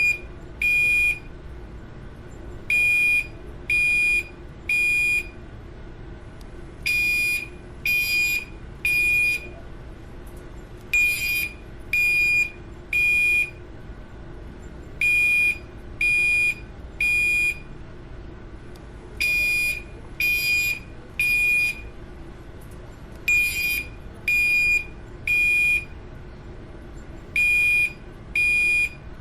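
Building fire alarm sounding the temporal-three evacuation pattern: three high, harsh beeps about a second apart, then a pause, the group repeating every four seconds.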